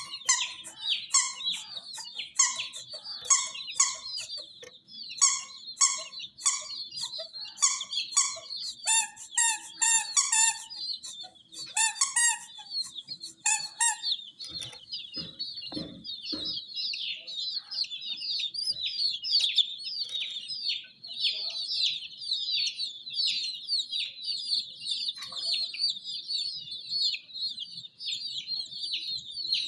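A brood of chicks peeping and chirping continuously, high and shrill. Through the first half a louder, regular call repeats about twice a second over the peeping. Near the middle come a few low thumps.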